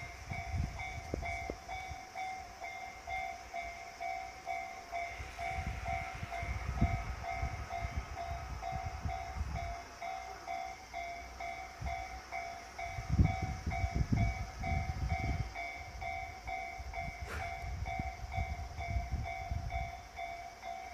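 Japanese level-crossing warning bell dinging in a rapid, steady repeat from the very start. Underneath it a Seibu Ikebukuro Line electric train rumbles past, loudest about two-thirds of the way through.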